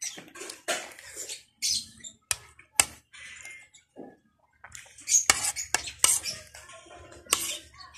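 Close-up eating sounds: chewing and mouth noises, with several sharp clinks of a utensil against a dish.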